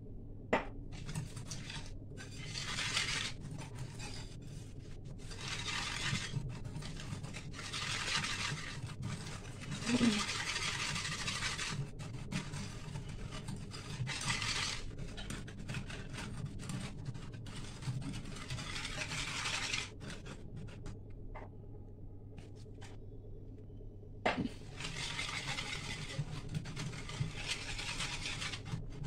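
Wire whisk scraping and swishing against the bottom of a steel pan, beating milk into a cocoa, sugar and cornflour mix in strokes of a second or two at a time. A sharp knock comes near the start and another near the end.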